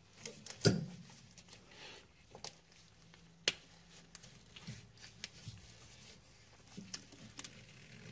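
Gloved hands pushing and twisting a rubber steering rack boot onto the rack: scattered rubbing and handling noises with a few sharp clicks, the loudest just under a second in and about three and a half seconds in.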